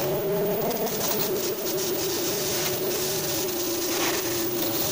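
Oxy-fuel cutting torch on a CNC cutting machine burning through 40 mm steel plate: a steady hissing jet with a constant buzzing hum and irregular crackles of spatter.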